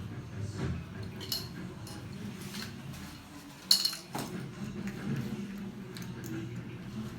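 A few light metallic clinks and clicks, the sharpest about three and a half seconds in, over a steady low hum.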